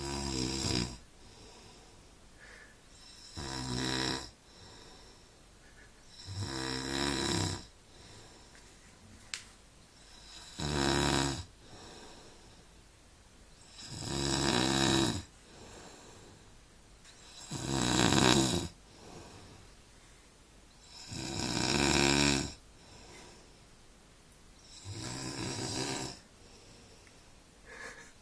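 A sleeping man snoring, one long snore about every three and a half to four seconds, eight in all.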